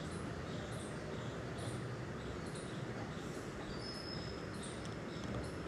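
Steady background hum and hiss of the room, with faint high-pitched chirps repeating about once a second and a brief thin high tone about four seconds in.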